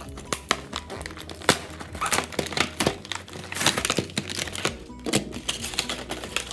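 Cardboard and plastic blister packaging of a Nerf blaster being torn open and crinkled by hand, a run of sharp crackles and rips with a few thunks, over background music.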